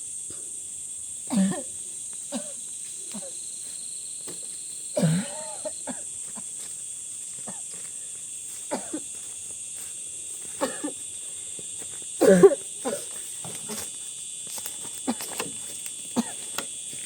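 A steady high-pitched insect chorus, with a woman coughing a few times in short bursts. The loudest burst comes about twelve seconds in, with light knocks scattered between.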